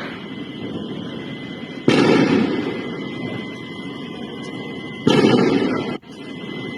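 Air-defence fire against drones: two sudden loud booms, about two seconds in and about five seconds in, each rumbling on for about a second. The second one cuts off suddenly.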